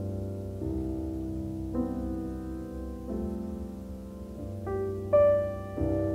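Background music: slow keyboard music with sustained chords changing about once a second.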